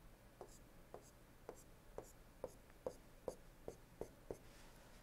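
Stylus tapping on a tablet screen while drawing a dashed line stroke by stroke: about ten faint, short taps, a little over two a second, coming slightly faster toward the end.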